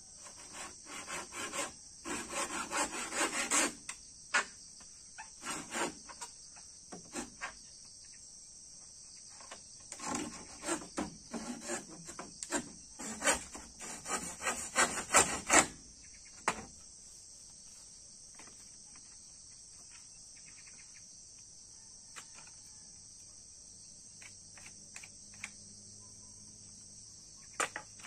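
Handsaw cutting through a pole in quick back-and-forth strokes: one bout of sawing from about one to four seconds in and a longer one from about ten to sixteen seconds in, followed by a few scattered knocks.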